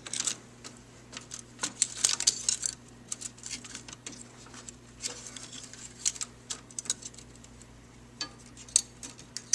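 Scattered small clicks and rattles of hands working a wiring connector and cables: the ventilation fan's J204 plug being pulled from the relay board. A steady low hum runs underneath.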